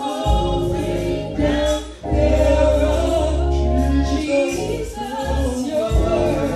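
Gospel singing, with long held low bass notes underneath for the first few seconds.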